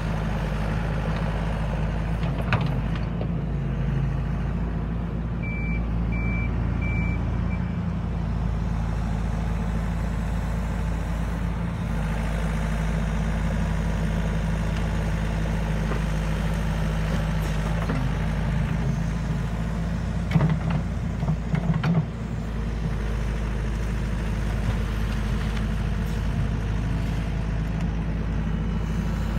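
Yanmar ViO80 9-ton excavator's diesel engine running steadily as it levels soil with its bucket. About six seconds in come three short high beeps of its travel alarm, and around twenty seconds in a burst of knocks and clatter.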